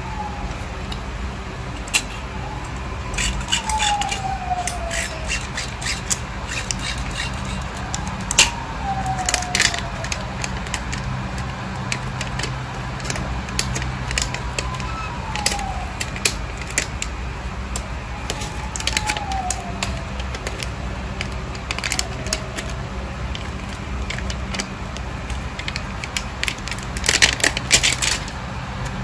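A dog whimpering every few seconds, each whine falling in pitch, over scattered light clicks and taps from hands handling a fishing rod and tools. A steady low hum runs underneath.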